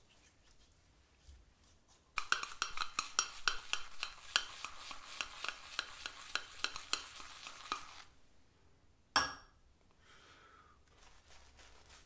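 Shaving brush whipping lather in a metal bowl for about six seconds: a rapid stirring swish with many small clinks of the brush against the metal. About a second later a single sharp clink, then faint brushing of lather on the face near the end.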